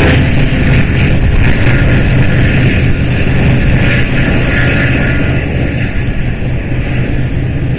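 Diesel freight locomotives passing close by with a heavy, steady rumble, then double-stack container cars rolling past with wheel-on-rail noise. The sound eases slightly as the locomotives draw away.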